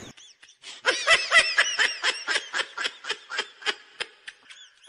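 Laughter sound effect: a fast run of short, high-pitched 'ha-ha' snickers, about five a second, starting about a second in and tailing off near the end.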